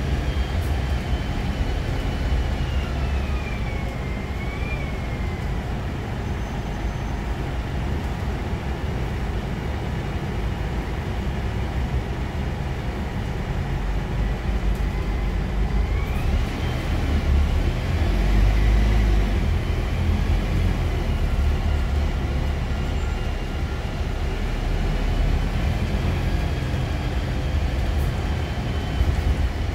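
Interior sound of a Scania Citywide II LF CNG city bus under way: a low engine and road rumble with a high drivetrain whine. The whine falls away over the first few seconds as the bus slows, then climbs again a little past halfway as it accelerates and holds steady.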